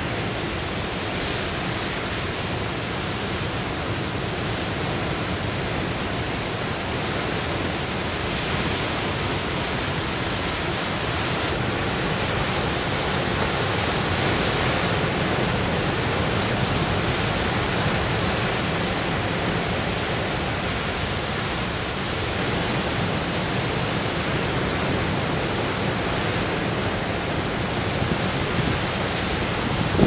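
Big storm waves breaking in a steady, unbroken wash of heavy surf, swelling slightly about halfway through.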